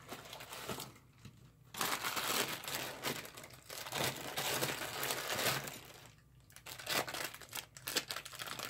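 Plastic packaging crinkling and rustling as parts wrapped in bags and bubble wrap are handled and pulled from a cardboard box, in two stretches with a short lull in between.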